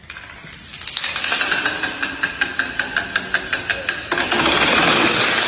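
Rapid, evenly spaced tapping strikes like hammering, about five a second, then a steady hiss from about four seconds in.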